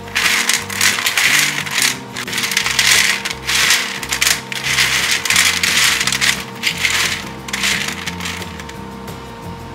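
Crisp caramel-coated fried bread cubes clattering and crunching on a glass plate as fingers stir and pick through them, in irregular bursts that die away near the end. Background music with a low melody plays underneath.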